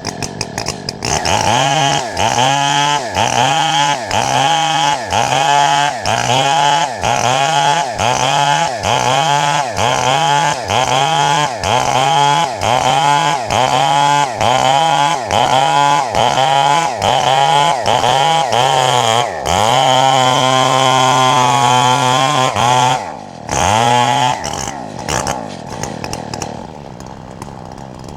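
Two-stroke chainsaw cutting wood, its engine revving up and down in a steady rhythm a little more than once a second. About two-thirds of the way through it holds at high revs for about three seconds, then drops back and eases toward idle near the end.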